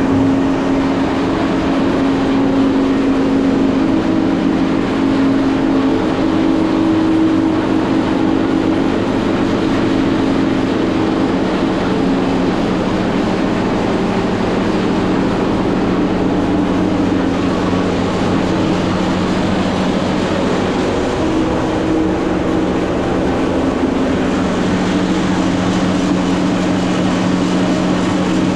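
Electric posho mill, a maize grinding mill, running steadily: a loud hum over a rushing grinding noise. The pitch of the hum shifts slightly about three-quarters of the way through.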